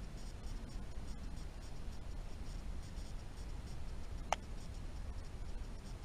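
Steady low rumble with a single sharp click about four seconds in.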